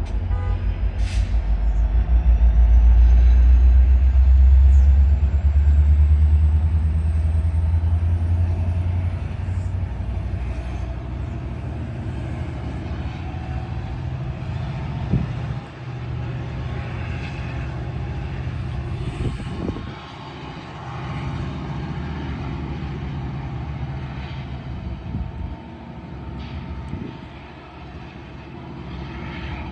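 Metra train's diesel locomotive running with a deep, steady drone, loudest for the first ten seconds and then easing off. A thin rising whine sounds near the start, and a few knocks come in the second half.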